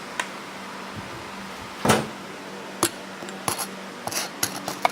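A piece of laminated auto glass being handled: one firm knock about two seconds in, then a few small clicks and light rattles near the end.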